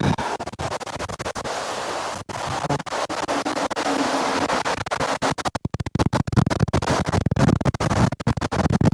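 Strong cyclone wind, forecast at over 100 km/h, buffeting a sheltered microphone: a dense rushing rumble broken by constant scratchy crackling and rubbing on the mic.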